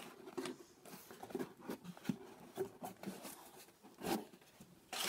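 Cardboard boxes handled on a wooden tabletop: scattered soft taps, scrapes and rustles of cardboard, with a louder thump about four seconds in as a box is set down.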